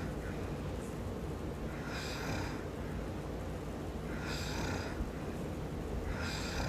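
A man snoring in his sleep: three short snores about two seconds apart, over a steady low hum.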